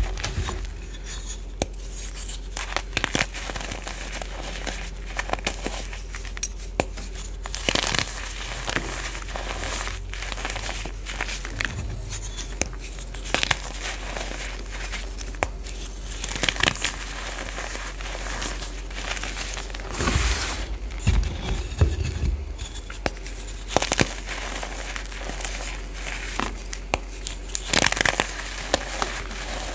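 Reformed gym chalk crushed and crumbled by hand into powder: irregular dry crunches and crackles throughout, over a faint steady low hum.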